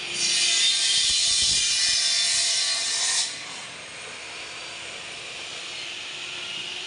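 Table-mounted electric circular bone saw cutting through bone for about three seconds, a loud high whine, then the blade spinning on with a steady hum.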